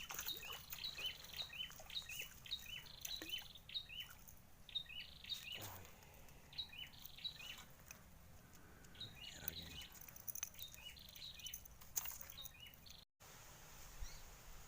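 Small bird calling outdoors: runs of short, high chirps, several a second, in three bursts separated by pauses, over faint background noise.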